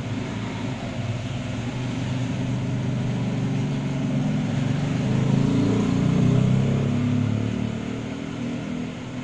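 Low engine rumble of a passing motor vehicle, growing louder to a peak about six seconds in and then fading.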